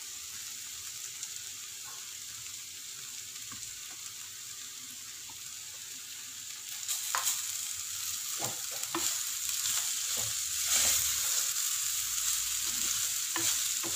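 Grated gooseberry and ginger frying in oil in a clay pot, sizzling steadily. From about halfway a wooden spatula stirs and scrapes through the mix, and the sizzle gets louder.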